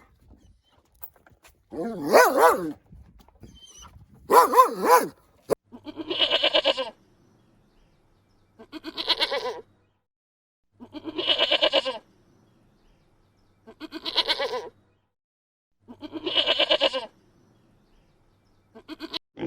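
Bleating calls: two wavering bleats, then five near-identical bleats repeated about every two and a half seconds.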